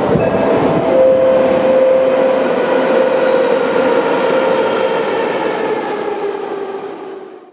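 Type 81-717/714 metro train pulling out of the station into the tunnel: wheels rumbling under a steady traction-motor hum, fading away as it recedes until the sound drops out near the end.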